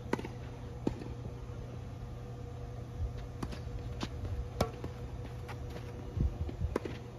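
Tennis rally: a ball struck by rackets and bouncing on the court, making sharp pops a second or more apart over a steady low hum.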